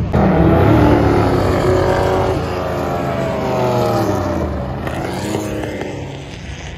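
Sports cars racing past on a circuit straight, their engines at full throttle. The sound comes in loud at once, the engine note falls in pitch as they go by, and it fades away near the end.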